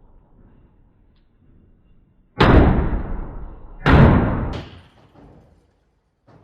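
Two pistol shots from a PSA Rock 5.7, chambered in 5.7x28mm, about a second and a half apart, each ringing out with a long echo. A fainter report follows the second shot less than a second later.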